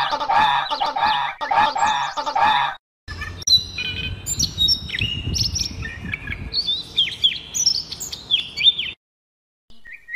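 A rapid series of bird calls for the first three seconds or so, then a European robin singing: high, thin, sliding whistled phrases over a low rumble, stopping about nine seconds in.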